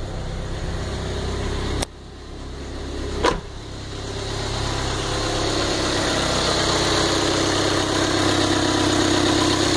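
A Chevrolet Corsa's engine with Multec EFI single-point throttle-body injection idling steadily, the injection system working normally. There are two sharp knocks about two seconds and three seconds in, and after them the idle grows louder and stays steady.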